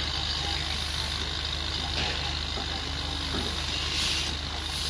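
Construction-site noise: a steady low engine hum, like a machine idling, with two brief scrapes of a trowel in mortar about two and four seconds in.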